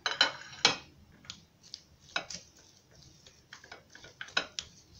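Spoon mixing raw sausage meat with chopped herbs in a small ceramic bowl: irregular clicks and taps of the spoon against the side of the bowl, a dozen or so spread unevenly through the stirring.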